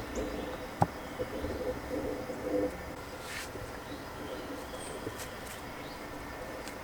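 Faint bird chirps over a steady low rumble, with one sharp click a little under a second in.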